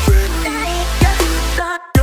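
Electronic background music with deep, falling bass kicks on a steady beat over a held bass note; it drops out briefly near the end before the next hit.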